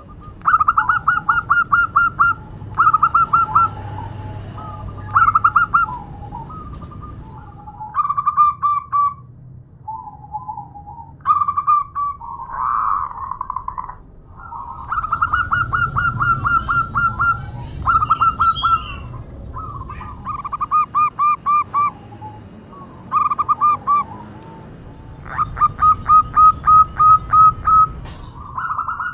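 Zebra dove (perkutut) calling: about a dozen quick runs of rapid stuttering coo notes, each run one to two seconds long with short pauses between, the longest run near the end. It is presented as a female's call to a male.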